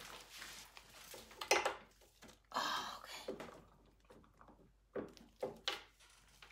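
Faint handling noises: soft rustles in the first few seconds, then a few light clicks about five seconds in, as painting tools are picked up from a table covered with a plastic sheet.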